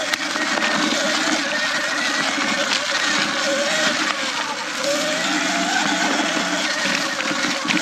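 Sur Ron X electric dirt bike's motor whining, its pitch rising and falling with speed, over a steady rush of wind and trail noise.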